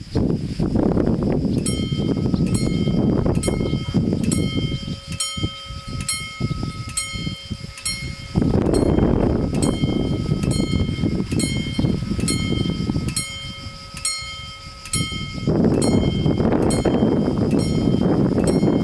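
Italian level-crossing warning bells start ringing about a second and a half in, a steady, even run of bright electronic dings that keeps going. Gusts of wind on the microphone come and go underneath and are louder than the bells.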